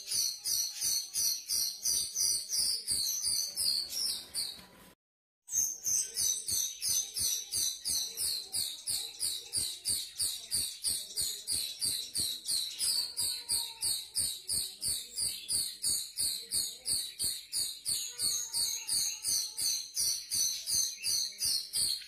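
Grosbeak starlings (rio-rio) calling: a fast, even run of high, shrill chirps, about three a second, cut off by a half-second gap about five seconds in.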